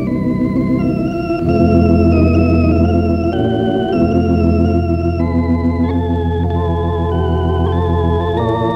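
Organ music playing slow, held chords over a low, sustained bass note.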